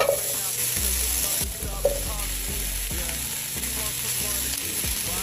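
Food sizzling as it fries in a pan, a steady hiss with a couple of clicks from stirring, over background pop music with a steady bass.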